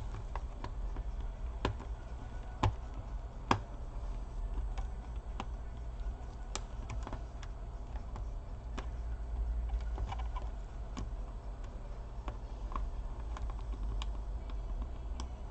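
Scattered light plastic clicks and taps from hands fitting ribbon cables into the connectors of an open laptop, over a steady low hum. Two sharper clicks stand out about three seconds in.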